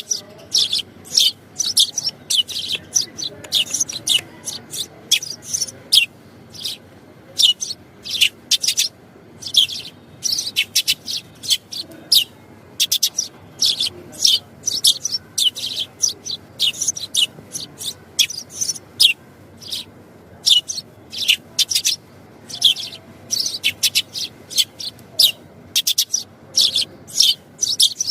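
Sparrows chirping: a continuous run of short, high chirps, several a second, with little pause between them.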